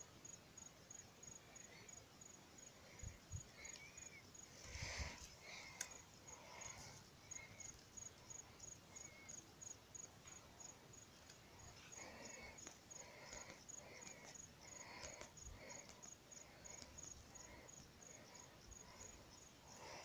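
Near silence with a faint insect, cricket-like, chirping in a steady rhythm of about two or three high pulses a second, with fainter lower chirps and a couple of soft rustles a few seconds in.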